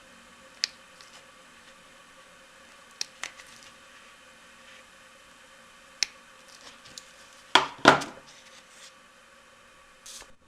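Scattered sharp clicks and taps of small hand tools being handled and set down, with a louder double clatter just before eight seconds in and a short hiss near the end.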